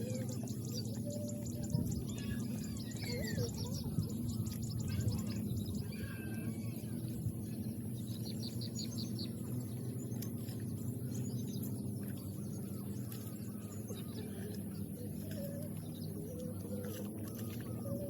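Small birds chirping and calling, with a quick trill about eight seconds in, over a steady low hum.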